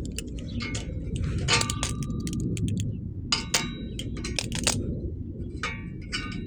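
Repeated metallic clinks and clangs, some ringing briefly, as metal parts and tools are handled while a fake turbo whistle is fitted to a car's exhaust pipe, over a steady low rumble.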